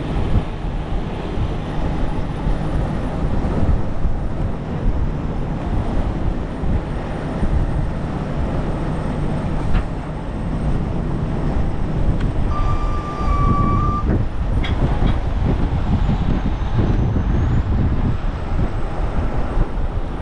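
Strong gusting wind buffeting a camera microphone despite its wind guard: a loud, dense, rumbling rush. About two-thirds of the way in, a single steady high beep-like tone sounds for about a second and a half.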